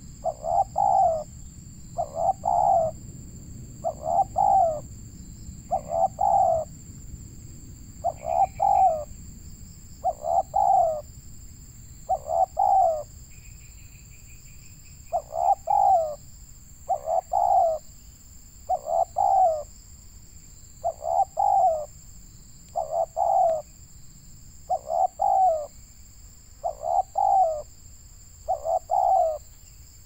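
Spotted dove cooing: a short phrase of a few falling coos, repeated about every two seconds, with one longer pause midway.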